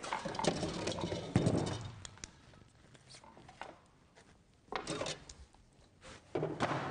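Rummaging through a pile of clutter: objects shifted, rustled and knocked together in several short bursts, the loudest in the first two seconds.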